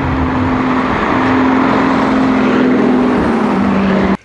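Racing car engine sound: a loud, steady rushing drone with a held hum that steps down in pitch about three seconds in, then cuts off suddenly.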